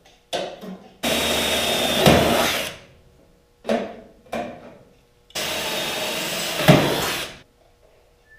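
Power drill boring through sheet steel twice, each run about two seconds long, with a sharp crack near the end of each as the bit breaks through, then winding down. Short metallic clicks of handling come between the two runs. These are the holes for clecos that hold two body panels together for welding.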